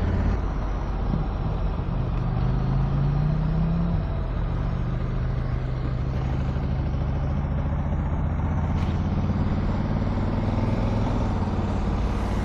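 A 2022 Honda Africa Twin's parallel-twin engine runs under way at road speed, with a steady rush of wind and road noise. The engine note rises in pitch for a couple of seconds, then drops back about four seconds in and holds steady.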